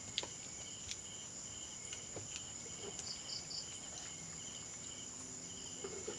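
Crickets and other night insects calling: a steady high-pitched trill, with a faster pulsing chirp beneath it and a few short chirps in threes.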